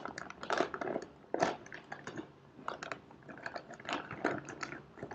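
Plastic snack bag being torn open and handled, giving irregular crinkling and crackling.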